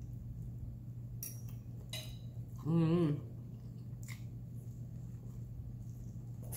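Someone eating: a few sharp clicks of a metal fork on a ceramic plate and mouth sounds of chewing, with a short wavering hummed "mmm" about three seconds in. A steady low hum runs underneath.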